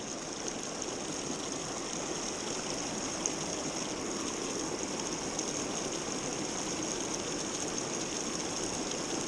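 Small freestone trout stream rushing over rocks close by: a steady rush of running water.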